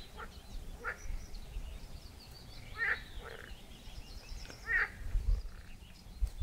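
Wild animal calls: three short wavering calls about two seconds apart, with fainter high chirps and a low rumble about five seconds in.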